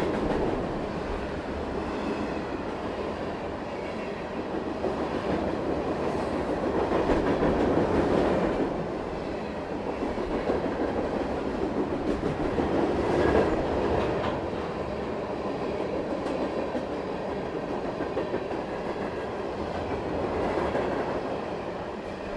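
Covered grain hopper cars of a long CN freight train rolling past close by: a continuous rumble of steel wheels on rail that swells and eases as the cars go by, louder about a third of the way in and again just past halfway.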